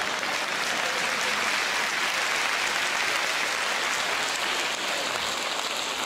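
Audience applauding steadily after a punchline, easing slightly near the end.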